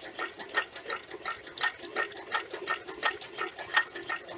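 Homemade alpha-type Stirling engine generator running steadily, its mechanism clicking in an even rhythm of about four beats a second.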